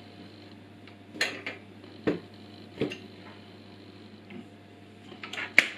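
Scattered sharp clicks and metal knocks from an angle grinder being handled and adjusted in its metal cutting stand, with a short cluster of them near the end. The grinder is not running.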